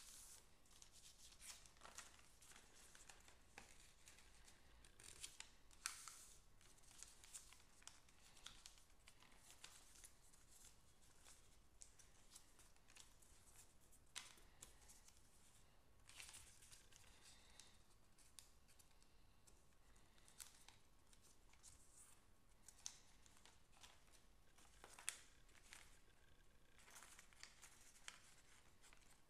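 Faint rustling and crinkling of a sheet of lined paper being folded and creased by hand into a paper airplane, in scattered short scrapes and crackles, with a couple of sharper snaps.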